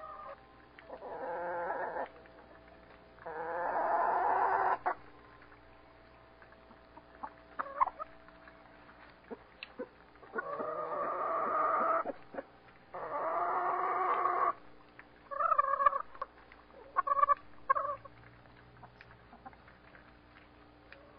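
Chickens calling: four long drawn-out calls of about a second and a half each, coming in two pairs, then two quick runs of short clucks near the end.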